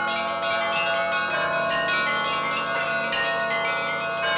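Russian Orthodox church bells being rung together: several bells of different pitches struck in quick succession, their tones ringing on and overlapping in a continuous peal.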